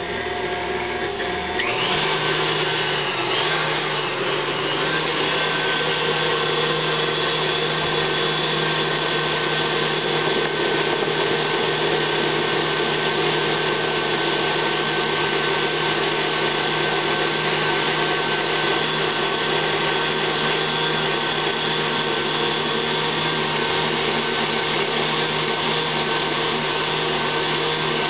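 KitchenAid stand mixer's motor running steadily as its wire whip beats egg whites while hot sugar syrup is streamed in for an Italian meringue. It spins up to a higher speed about two seconds in, then holds an even whir.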